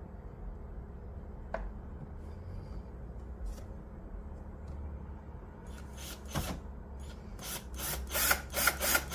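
Small parts of a watch winder being handled and fitted by hand: a single sharp click, then near the end a quick run of louder clicks and scrapes, over a faint steady low hum.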